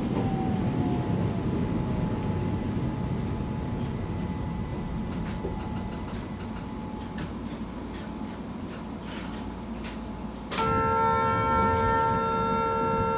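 Keihan 800-series electric train running on the rails, heard from the cab as a steady rumble with a faint motor whine dropping in pitch just after the start. About ten seconds in, a horn sounds a loud chord of several steady tones for about three seconds, then cuts off.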